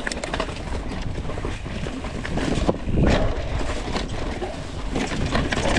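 Mountain bike rolling along a rough forest trail deep in dry leaves: tyres crunching through the leaves and the bike clattering over rocks and roots, with wind rushing over the handlebar-mounted camera's microphone.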